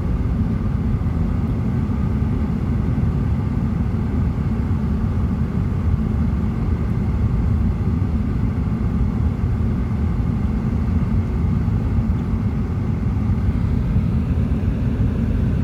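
Steady low rumble of a car driving along, its road and engine noise heard from inside the cabin.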